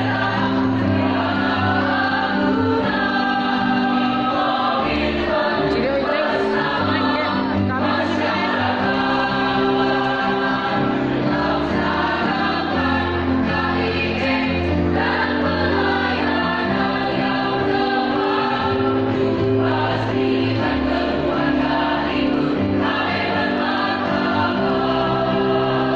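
Choir singing a song in several voice parts, with sustained held notes and no pauses.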